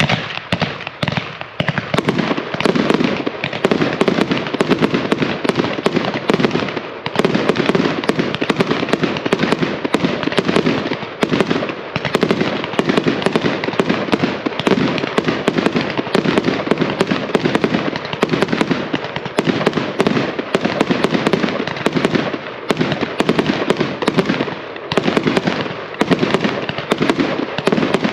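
A Spirit of 76 consumer 1.4G 49-shot multicolor peony cake firing: a rapid, continuous string of launch thumps and shell bursts that begins at once and keeps going, thinning briefly twice.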